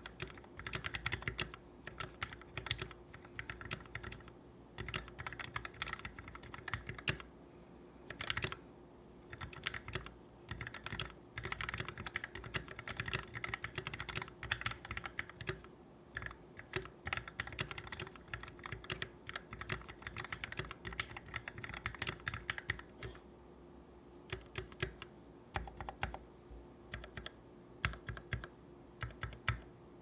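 Typing on a KBD75 mechanical keyboard with lubed Gateron Black linear switches and DSA-profile PBT keycaps: a steady run of keystroke clacks with short pauses, thinning to scattered single keystrokes in the last several seconds.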